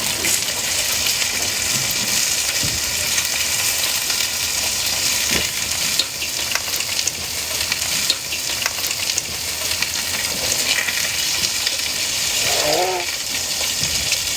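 Food frying on a street-food stall: a steady sizzle with scattered crackles and pops.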